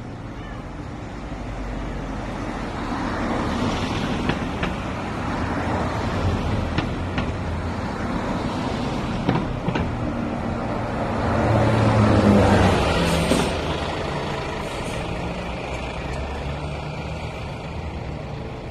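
Street traffic noise that swells as a vehicle passes, loudest about two-thirds of the way through, then fading, with a low engine hum under it.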